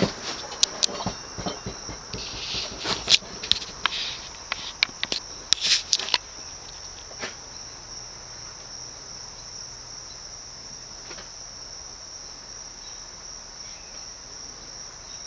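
Ceiling fan's metal pull chain and ball swinging and clicking against the switch housing in irregular ticks and rattles for about the first six seconds, then settling. A steady high-pitched insect trill runs underneath throughout.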